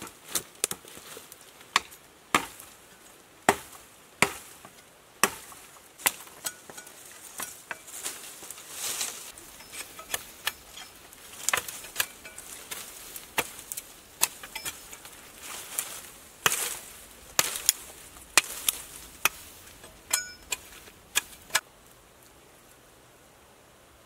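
Sickle chopping at bamboo and brush: a long run of sharp, irregular cutting strikes, sometimes two or three in a second, with rustling of leaves and stems between. The strikes stop a few seconds before the end.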